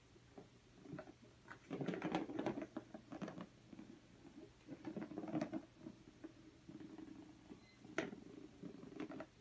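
A cat playing with a toy: irregular pattering, scratching and light knocks in bursts, with one sharp click near the end.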